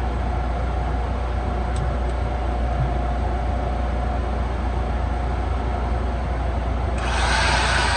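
Steady low machine hum, then near the end a stick-welding arc is struck and burns with a loud, sudden hiss and crackle.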